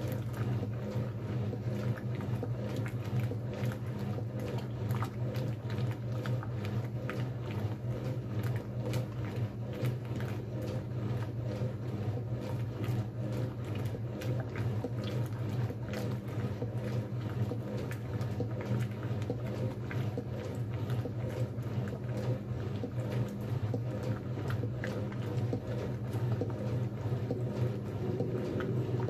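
1957 Blackstone 350 automatic washer agitating a load in its stainless tub: a steady low hum from the motor and transmission, with water sloshing and splashing throughout.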